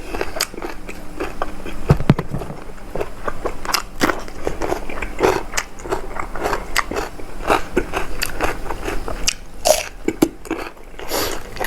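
A person chewing and crunching a mouthful of spicy seafood pounded salad, with many short, irregular crunches and wet smacks.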